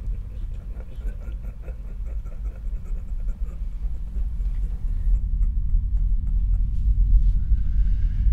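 A deep, ominous low rumble from horror-film sound design, swelling steadily louder. For the first five seconds or so it is overlaid with faint crackling and scratchy clicks, which then die away.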